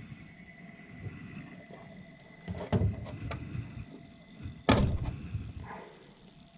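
Two sharp clunks with a few lighter clicks, from parts and tubing being handled inside a furnace cabinet, over a faint steady whine.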